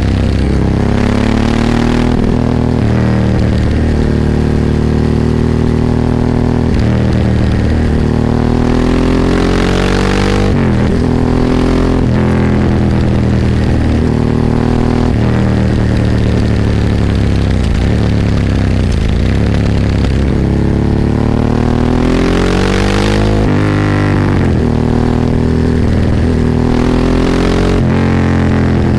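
Ducati 998's V-twin engine heard on board under riding: the pitch climbs repeatedly as it accelerates and drops sharply at each gear change, several times, with the revs easing off and rising again.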